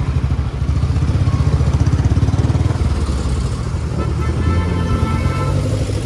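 Royal Enfield motorcycle's single-cylinder engine running at low speed with a rapid, steady thump.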